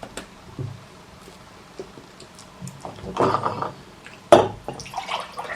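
Scattered clinks and taps of cutlery against plates while eating, the sharpest a little past four seconds in, with a brief muffled scraping noise about three seconds in.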